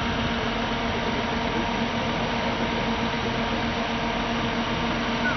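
Range Rover P38 engine running steadily at low revs, a constant hum over a steady noise.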